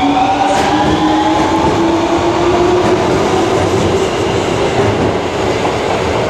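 Osaka Municipal Subway 25 series train pulling away from the platform: a traction-motor whine rises slowly in pitch over the rumble of the wheels on the rails as it accelerates. The sound eases off near the end as the last car passes.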